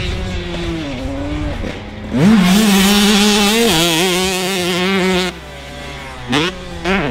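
2005 Honda CR125 two-stroke motocross engine revving hard: about two seconds in it climbs sharply to high revs and holds there, dips briefly, holds again, then cuts off. Near the end come two short throttle blips.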